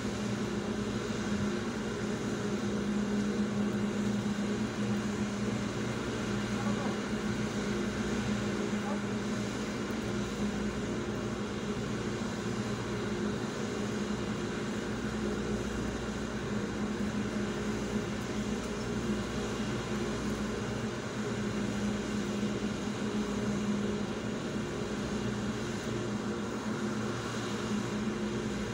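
Steady mechanical hum with a constant low drone, like a car's engine and air conditioning running, heard from inside the cabin.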